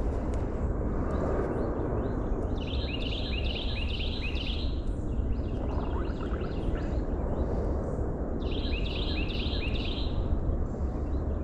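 A songbird sings two bouts of quick, repeated chirps, one about two and a half seconds in and one about eight and a half seconds in, over a steady rushing outdoor noise.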